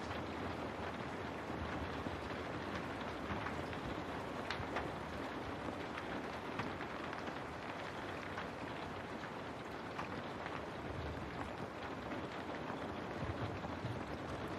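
Steady rain falling on window glass, with scattered sharper drop ticks over an even hiss and a low steady rumble underneath.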